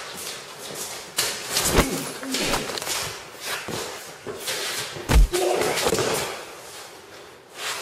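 Fight sound effects: a string of punches and scuffles, with two heavy thuds about two and five seconds in.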